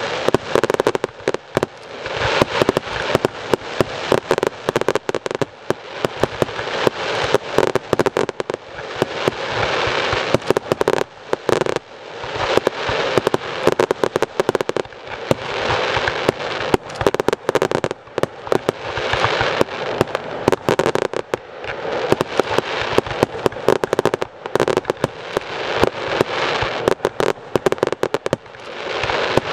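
Fireworks display: shells bursting in rapid succession with dense crackling. The barrage swells and eases in waves every few seconds without a break.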